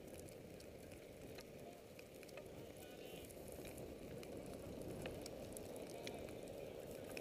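Faint, steady low rushing noise of skiing downhill on snow, slowly growing louder, with a few faint ticks.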